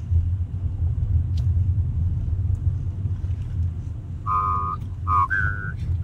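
Steady low rumble of a car driving, heard from inside the cabin. About four seconds in, a person starts whistling a melody in short, clear notes.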